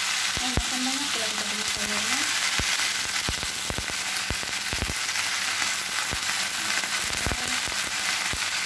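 Spinach just added to hot oil with fried anchovies and onion, sizzling in a wok: a steady hiss with scattered sharp pops.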